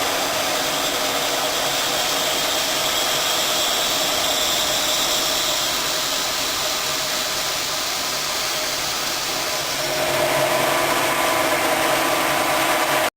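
Electric motor of a stainless-pipe notching machine running steadily with a whine; about ten seconds in it becomes louder and heavier.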